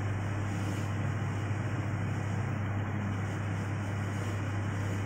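Steady low hum with an even hiss of background room noise; the knife slicing the soft banana makes no distinct strokes above it.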